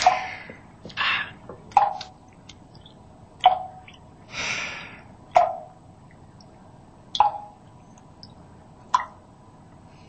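A faucet dripping: single water drops plinking, about six in all, evenly spaced just under two seconds apart. The faucet was probably not turned off all the way.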